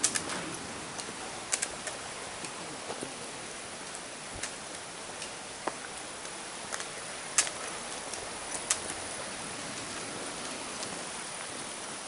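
Walking on a paved road: irregular sharp taps and footfalls, a dozen or more scattered through, over a steady outdoor hiss.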